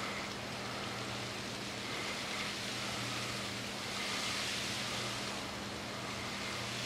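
Butane lighter flame hissing steadily as it heats a snap-disc blower thermostat, swelling slightly about four seconds in, over a low, even hum.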